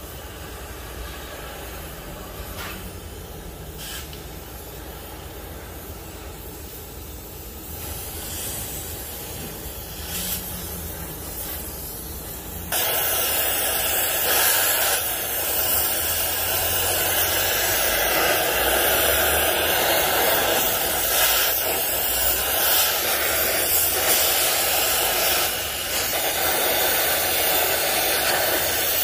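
Oxy-fuel gas torch flame hissing steadily as it heats a rust-seized brake linkage on a tractor to free it. It is softer with a few faint knocks at first, then becomes abruptly much louder about 13 seconds in.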